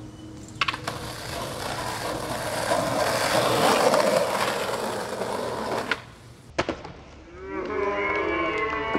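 Skateboard rolling on concrete: a clack of the board just over half a second in, then wheel noise swelling for about five seconds, and two sharp clacks of the board about six and a half seconds in. Several voices shout near the end.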